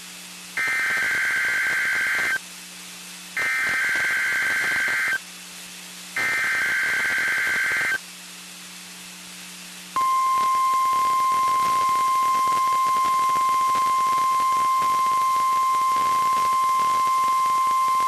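NOAA Weather Radio Required Weekly Test: three identical SAME digital header bursts of about two seconds each, a second apart, then the steady 1050 Hz warning alarm tone starting about ten seconds in. Radio hiss and a low hum run underneath.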